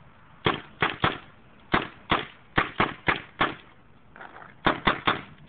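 Spyder Xtra semi-automatic paintball marker firing a quick string of sharp shots, about nine in the first three and a half seconds. After a short pause, three more follow near the end.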